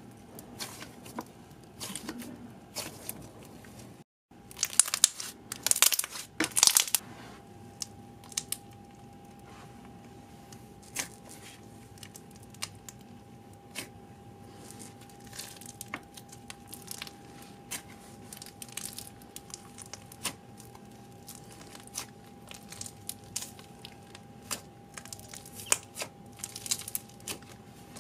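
Hands stretching, poking and squishing slime, giving sticky crackling and tearing sounds made of many small clicks. After a short break at about 4 s, the crackling is densest and loudest for a couple of seconds, then thins to sparse little crackles as fingers press into foam-bead slime in its plastic jar.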